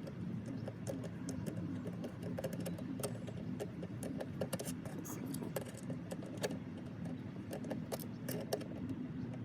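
Irregular small metallic clicks and clinks of hand tools working on hose clamps as the catch can lines are tightened back on, over a low steady hum.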